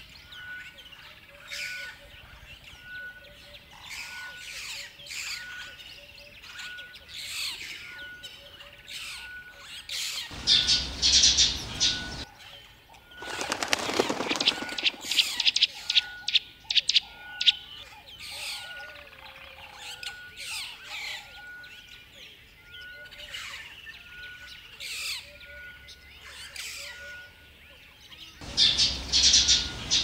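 Small songbirds chirping and twittering, with many short downward-sweeping calls and a soft note repeating about once a second. Two bursts of wing flapping, one about ten seconds in and one near the end.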